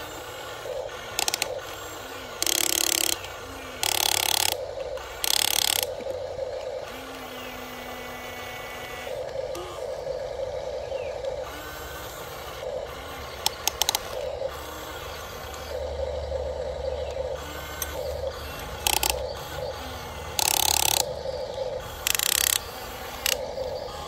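Huina RC excavator's small electric gear motors whirring and grinding in short spells as the boom and bucket move, broken by several brief, louder rasping bursts.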